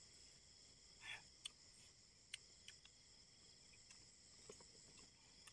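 Faint, steady chirring of night insects, crickets among them, in several high-pitched bands, with a few soft scattered clicks.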